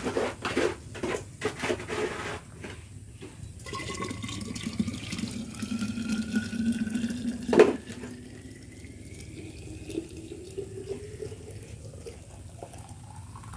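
Hot water poured from a metal pot into a vacuum flask, splashing at first and then rising steadily in pitch as the flask fills. There is a single sharp knock about seven and a half seconds in, and a second pour near the end also rises in pitch.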